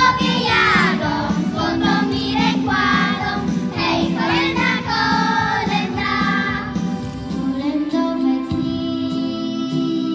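A group of young girls singing a Christmas carol together, their voices amplified through stage microphones.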